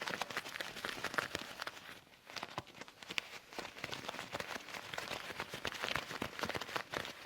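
Leather gloves being rubbed and handled: a dense run of small crackles and ticks, easing off briefly about two seconds in.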